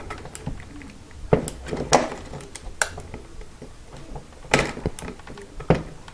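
Irregular clicks and light knocks of hard plastic as the opened Turnigy 9X transmitter case is handled and the wiring connector inside is worked loose from the main board.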